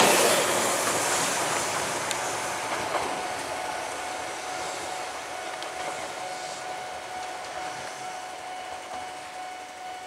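Eizan Electric Railway 900-series 'Kirara' electric train running away after passing close by, its rumble fading steadily. A faint steady whine comes in about three seconds in.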